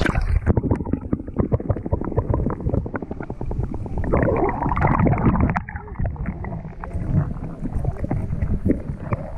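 Water splashing and sloshing close to the microphone, muffled, with many small irregular knocks.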